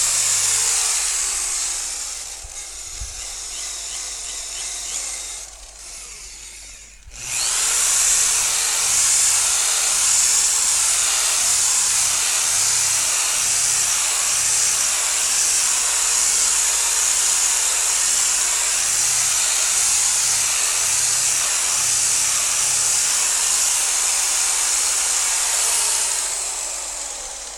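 Electric car polisher buffing a freshly painted side panel. It eases off for a few seconds, nearly stops about seven seconds in, starts again and runs steadily, then winds down near the end.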